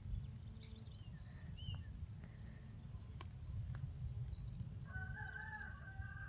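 Faint bird calls: a run of short, high chirps repeating about three times a second, then a longer drawn-out pitched call from about five seconds in, over a low steady rumble.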